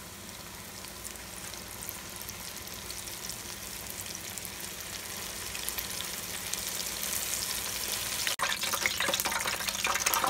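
Battered bluegill fillets deep-frying in hot oil: a steady sizzle full of fine crackling pops that grows gradually louder, broken by a momentary dropout near the end.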